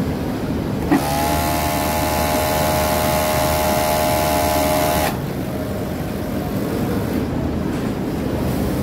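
Industrial sewing machine running at speed for about four seconds, starting with a click about a second in and a brief rising whine, then stopping suddenly. Steady factory machinery hum underneath throughout.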